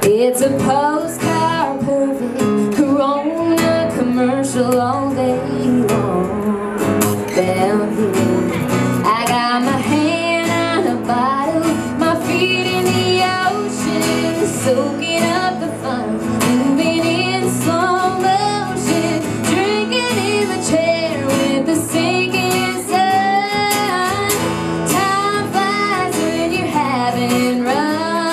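A woman singing a country song live, accompanied by strummed acoustic guitars.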